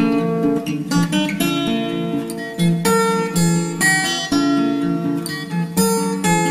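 Background music: strummed and plucked acoustic guitar with a steady rhythm.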